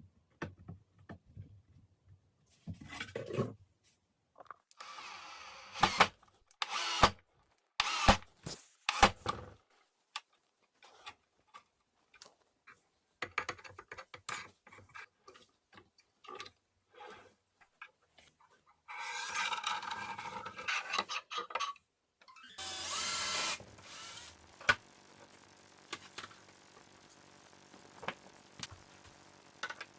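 Workshop assembly sounds: scattered clicks and knocks of parts and hand tools, with several short bursts of a power tool. The loudest burst comes about two-thirds of the way in, and a faint steady hum follows it.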